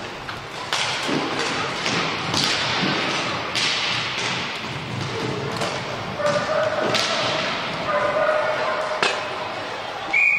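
Roller hockey play in an echoing hall: sticks and a puck knock and clack on the wooden floor over the rolling of inline skate wheels, with children's voices calling out.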